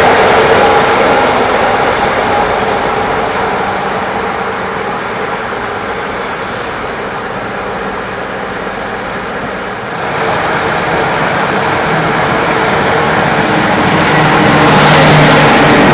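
Passenger train rolling past, hauled by a CFR Class 41 electric locomotive: steady wheel and rail noise from the locomotive and coaches, with a thin high wheel squeal from a few seconds in until about halfway. Near the end a second locomotive approaches, adding a low steady hum.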